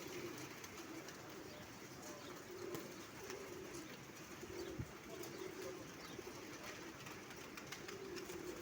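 Pigeons cooing, a run of low coos following one another about every second, with one sharp tap about five seconds in.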